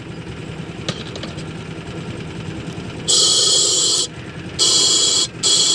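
A steady low hum, then loud hissing in three stretches of about a second each, separated by short gaps.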